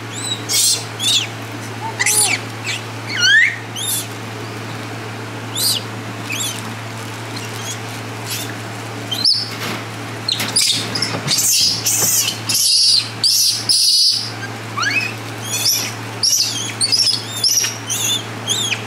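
Many short, high animal chirps and whistled calls, some rising sharply in pitch, coming thick and fast in the middle, over a steady low hum.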